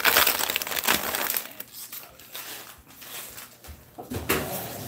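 A foam egg carton with broken eggshells inside being pressed shut and crushed by hand, crackling and crunching, loudest in the first second and then fainter, with another short crunch near the end.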